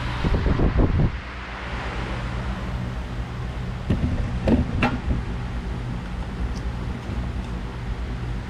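Hand-operated sheet-metal shrinker being worked on a steel strip to pull back its curve: short clunks and creaks in the first second and again around four to five seconds in, over a steady low hum.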